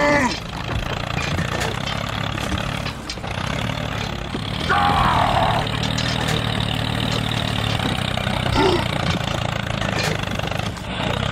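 Steady low engine-like drone of a toy mini tractor pulling a loaded trolley over rubble. A short, higher falling sound cuts in about five seconds in.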